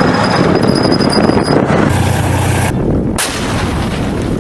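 A military tank running: a continuous loud, dense noise of engine and tracks, then a sudden loud blast about three seconds in, the tank's main gun firing.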